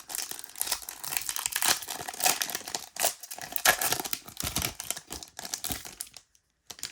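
Foil wrapper of a Pokémon TCG booster pack crinkling and tearing as it is opened by hand; the dense crackling stops about six seconds in, with one short click near the end.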